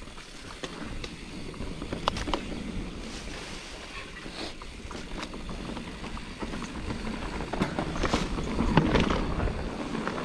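Mountain bike riding down a dirt trail: wind rumble on a chest-mounted action camera's microphone with tyre noise and scattered clicks and rattles from the bike, getting louder toward the end.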